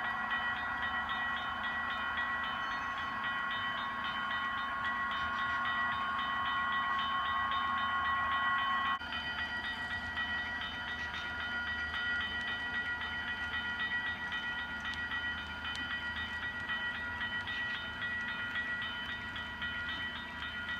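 HO-scale model freight train rolling past a grade crossing: the cars' wheels run on the track under a steady metallic ringing from the crossing bell. About nine seconds in, one of the ringing tones cuts off suddenly and the sound gets a little quieter.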